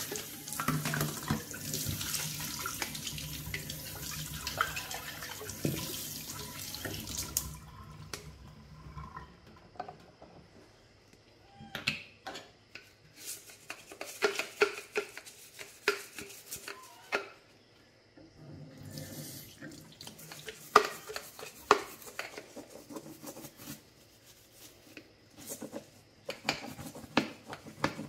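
Kitchen tap running into a stainless steel sink while a plastic baby bottle is rinsed under it, shut off about seven seconds in. Then scattered clicks and knocks of the plastic bottle and its parts being handled, with the tap running again briefly.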